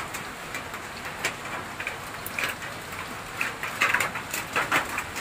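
Rain falling steadily, with scattered drop ticks that grow denser about three and a half seconds in.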